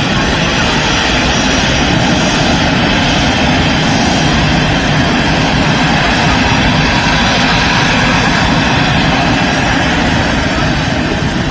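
Airplane engines running loudly and steadily.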